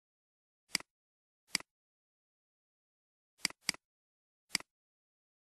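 Computer mouse clicking: five short, sharp clicks, each a quick press and release, with two coming close together about three and a half seconds in.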